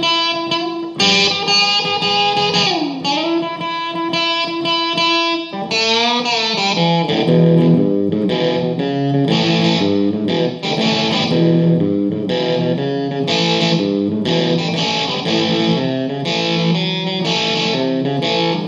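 Solo electric guitar playing an instrumental outro. It opens with held, ringing notes, one bending down and back about three seconds in, then moves into quicker picked notes from about six seconds in.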